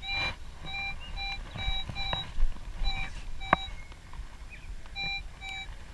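Minelab CTX3030 metal detector sounding about ten short beeps at one steady pitch as its coil sweeps over a buried target reading 11.42. The target is the one the detectorist reckons is a can, with a few sharp clicks between the beeps.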